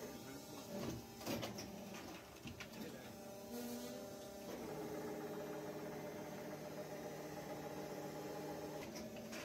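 Injection molding machine running with a steady mechanical hum whose tone shifts once about halfway through. A few sharp clicks and knocks about a second in, and a short hiss a little later.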